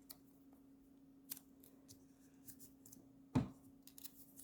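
A few short, sparse clicks and light rustles of paper being handled during a cut-and-paste worksheet, the loudest about three and a half seconds in, over a faint steady hum.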